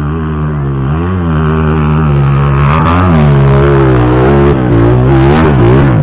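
Trail bike engine revving hard on a steep climb. The pitch rises and falls over and over as the throttle is worked, and it gets louder as the bike comes up.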